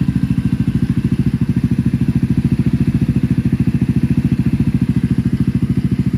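A Venom X19's 200cc motorcycle engine idling steadily, with an even, rapid putter of about a dozen beats a second.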